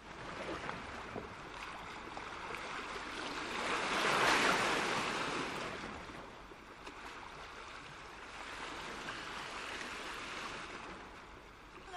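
Recorded sound of sea waves washing in. One rushing swell peaks about four seconds in and falls away, then a softer one comes near the end.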